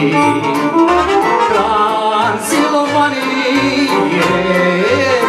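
Live Romanian folk band playing an instrumental passage: violin, accordion and electronic keyboard over a steady bass beat about twice a second.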